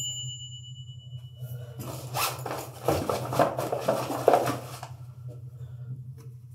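Cloth rustling and rubbing, a scratchy run of several short strokes lasting about three seconds, over a steady low hum.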